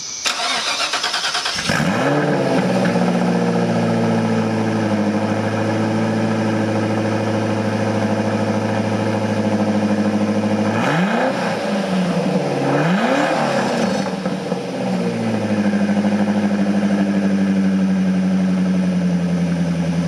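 Lotus Esprit V8's twin-turbo V8 cranked and started, flaring up and settling into a steady idle. It is blipped twice about eleven and thirteen seconds in, then idles evenly again. It is now running well, its two-cylinder misfire cured.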